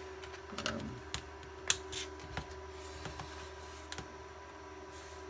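Scattered sharp plastic clicks and snaps as the tight back cover of an IBM PC110 palmtop is pried off without a proper tool, with one louder snap about a second and a half in.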